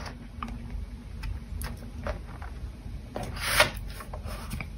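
White cardstock being slid and pushed into place against the guide rail of a paper cutting and scoring board: soft paper rubbing with faint taps, and one louder swish about two-thirds of the way through.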